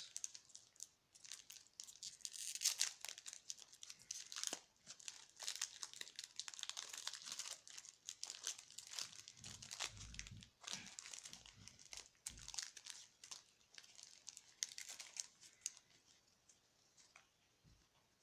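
Foil wrapper of a Pokémon booster pack being torn open and crinkled by hand: a long run of sharp crackles that thins out and fades near the end. A few dull bumps from handling come in about the middle.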